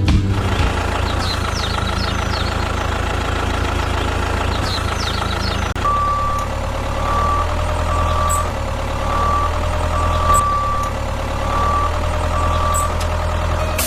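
A truck engine running steadily. About six seconds in, a reversing beeper starts and beeps evenly about once a second.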